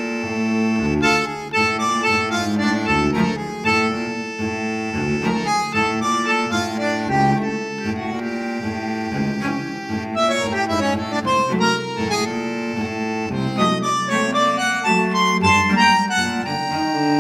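Background music: a melody of changing notes over held low notes.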